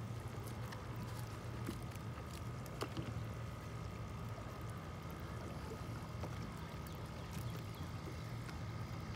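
Steady low hum of a boat motor running, with a faint constant whine above it and a few small clicks scattered through.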